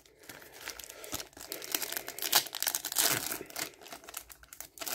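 Foil Yu-Gi-Oh booster pack wrapper being torn open and crinkled by hand, with the cards being slid out. The crinkling and tearing is loudest two to three seconds in.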